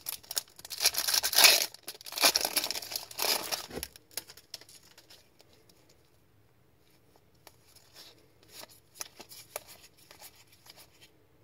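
Wrapper of a hockey card pack torn open and crinkled in several loud, noisy rips over the first four seconds. Near the end, faint rustles and ticks of the cards being sorted by hand.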